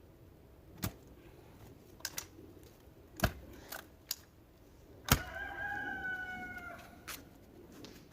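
A rooster crows once, a single call of about two seconds past the middle that drops in pitch as it ends. Before it come several sharp knocks, the loudest just before the crow.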